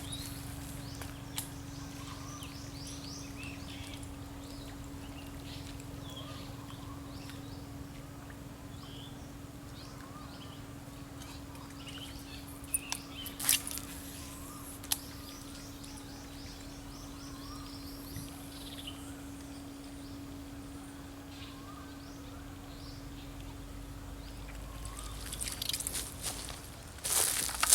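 Birds chirping in short repeated calls over a steady low hum, with a few sharp clicks about halfway through and rustling that grows louder near the end.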